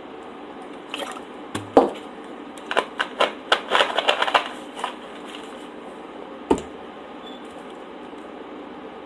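Close-miked eating: a crisp taco shell crunching, with a dense run of sharp crunchy snaps in the middle and a few single snaps before and after.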